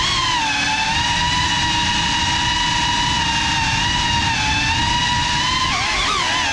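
GEPRC Cinelog 35 FPV drone's motors and propellers whining at a steady throttle. The pitch wavers and dips briefly near the end as the throttle changes.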